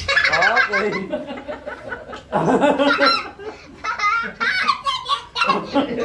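People laughing heartily in several bursts.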